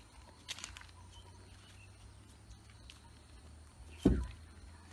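Footsteps on the granite slabs of a stone bridge: a few light scuffs and one heavy footfall thump about four seconds in, with faint bird chirps in the background.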